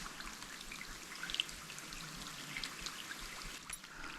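A soft, steady hiss of rain and running water, with a few faint ticks of drops.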